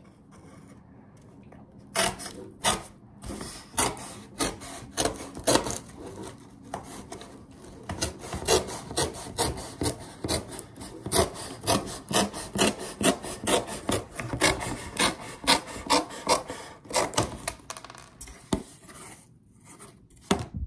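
Repeated rasping strokes on cardboard, about two a second, starting about two seconds in and thinning out near the end.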